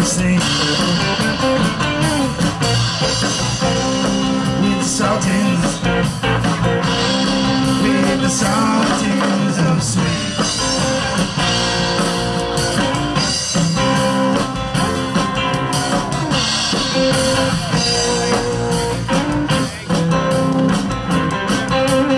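Live band playing a rock song on upright double bass, acoustic and electric guitars and drum kit.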